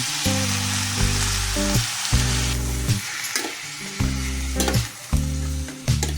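Food frying in hot oil in a pan, with a steady sizzle, over soft background music with sustained low notes.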